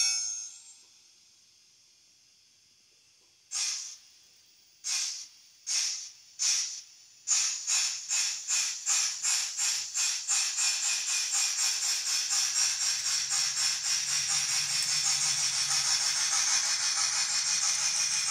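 Mantua 0-6-0 Pennsylvania saddle tank switcher's factory DCC sound decoder playing hissy steam exhaust chuffs: four widely spaced chuffs, then a regular beat that speeds up until the chuffs nearly run together as the locomotive gets under way. A low hum joins about twelve seconds in.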